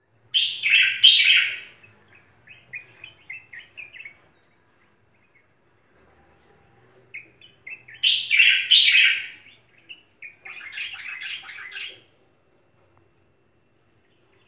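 Caged common bulbul singing: two loud phrases, one near the start and one about eight seconds in, each running on into a string of short, quick chattering notes. A young bird that has only just begun to sing.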